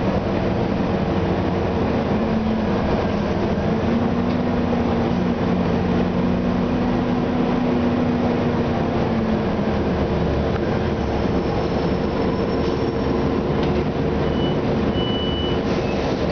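Orion VII transit bus's Detroit Diesel Series 50 engine and Allison B400R automatic transmission under way, heard from inside the passenger cabin as a steady drone. A humming tone rises a couple of seconds in and drops away about nine seconds in, and the bus comes to a near stop near the end. A short high tone sounds near the end.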